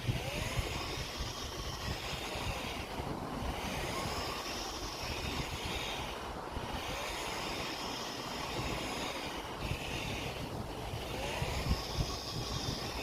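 Handy Gym flywheel trainer whirring through repeated reps. The flywheel spins up and winds down in a cycle about every three seconds, with wind rumbling on the microphone.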